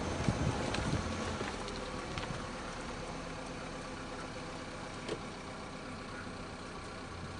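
Steady hum of a car's engine and road noise heard from inside the moving car, with wind buffeting the microphone during the first second. A single click comes about five seconds in.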